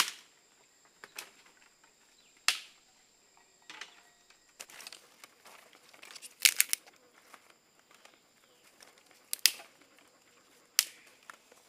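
Dry twigs and thin sticks snapping as they are broken by hand: about eight sharp cracks spaced unevenly, with a quick run of three about six and a half seconds in, and light rustling of the brush pile between them.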